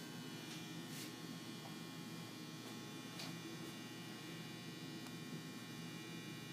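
Faint steady electrical hum in a quiet room, with a couple of faint clicks about one and three seconds in.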